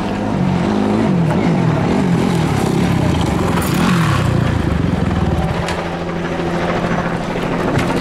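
Honda race dirt bike's engine revving up and down several times, then settling to a steady idle about five seconds in.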